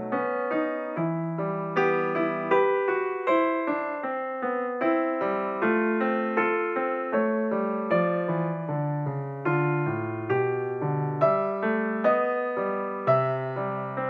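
Background music: solo piano playing a gentle melody with a steady flow of notes.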